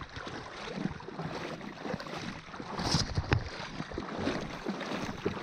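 Stand-up paddleboard moving through shallow river water: paddle strokes splashing and water washing along the board, with a few sharper splashes and knocks, the loudest about three seconds in.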